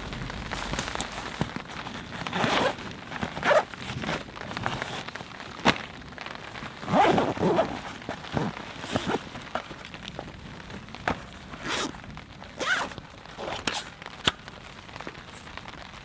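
Irregular rustling and handling noises, with short swishing bursts and scattered sharp ticks, from someone moving about and handling gear at a tarp camp in light rain.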